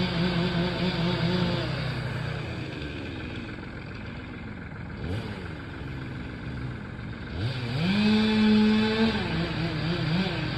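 Stihl two-stroke chainsaw run at full throttle, its pitch sagging and wavering under load as it cuts, then let down to idle for several seconds. About seven seconds in it is revved back up to a high steady pitch and goes back into the cut.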